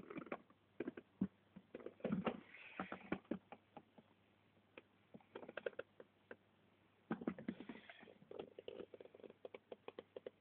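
Faint, irregular clicks, taps and scratchy rustles: handling noise from a phone camera being moved and gripped.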